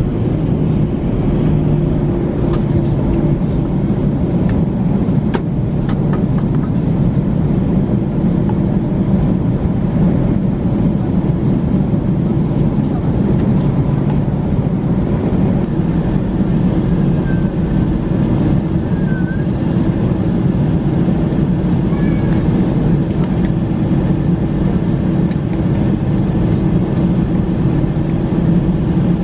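Steady cabin noise inside an Airbus A321 taxiing after landing: a low drone with a hum from the idling engines that fades slightly and returns about halfway through.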